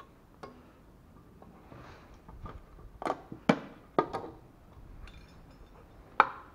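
A few short, sharp clicks and taps of a metal oil tin's screw cap being worked open by hand, spaced irregularly, with the loudest clicks about three seconds in and near the end.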